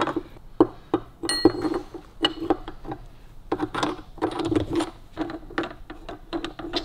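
Irregular metallic clinks and knocks from a tubular box spanner and tommy bar working the nuts on a Harley-Davidson WLA star hub, with one ringing metal tink about a second and a half in.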